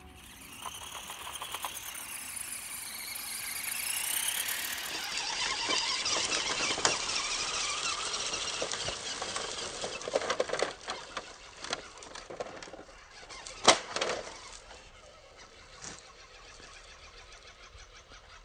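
Small RC truck's 130-size brushed electric motor and gears whining, rising and falling in pitch as it drives. This gives way to the rustle of its tyres over leaves and gravel, with scattered clicks and one sharp click about three-quarters of the way in.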